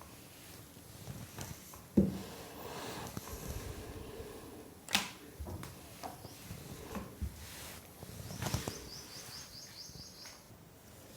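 Wooden rolling pin rolling out wheat-flour dough on a chakla board: a faint low rolling rumble broken by a few sharp knocks, the loudest about two seconds in and another about five seconds in.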